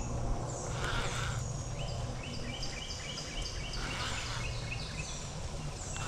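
Wild birds chirping in runs of short, quick, falling notes, over a low steady rumble.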